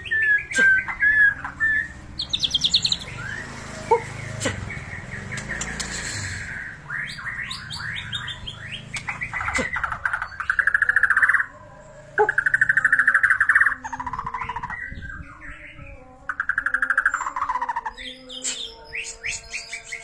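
White-rumped shama (murai batu) singing a varied song: clear whistled notes and glides at first, then loud, rapid rattling trills in bursts of a second or two with short pauses between.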